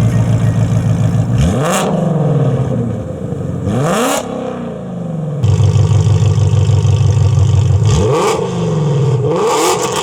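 Ford Mustang Shelby GT350's 5.2-litre flat-plane-crank V8 running through Stainless Works headers and exhaust, revving: steady stretches broken by about four quick climbs in pitch.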